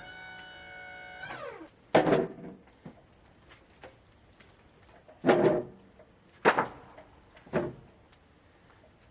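Four sharp wooden knocks a second or more apart, typical of cedar fence boards being dropped and stacked. They follow a short pitched whine that drops in pitch and dies out about a second and a half in.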